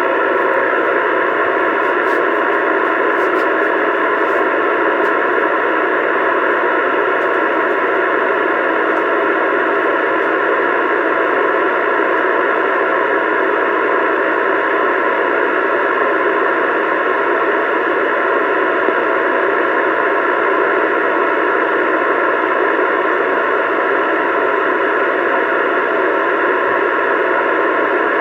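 CB radio speaker giving a steady, loud hiss of static, with no voice on the channel.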